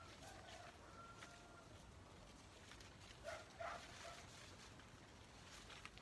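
Near silence with faint animal calls: a thin whistle-like call early on and two short calls about halfway through.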